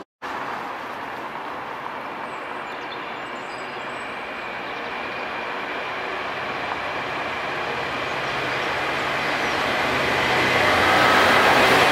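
Container freight train approaching on the main line, a steady rumble from the locomotive and wagons on the rails that grows louder as it nears.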